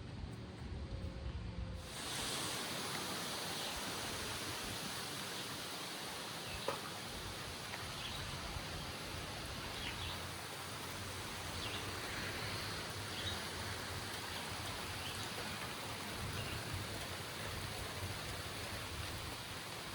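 A low rumble cuts off about two seconds in, and a steady, even hiss of heavy rain and wind from a severe thunderstorm takes over, with faint scattered ticks in it.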